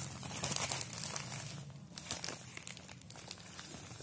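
Plastic courier mailer bag crinkling and rustling as it is handled, in irregular crackles that are busier in the first half and thin out later.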